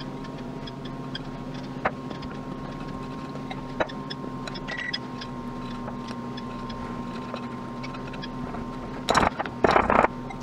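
Wire whisk stirring flour into thick chocolate batter in a glass bowl, with scattered light clicks of the wires against the glass, and two loud scrapes or knocks of the whisk on the bowl near the end. A steady background hum runs underneath.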